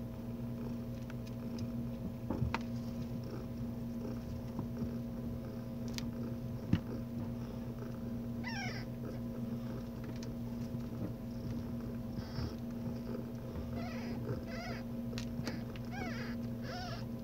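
Newborn kittens mewing in short, high squeaks that glide up and down. The squeaks start about halfway through and come more often toward the end. A few sharp cracks come from the floor above as someone walks over it, over a steady low hum.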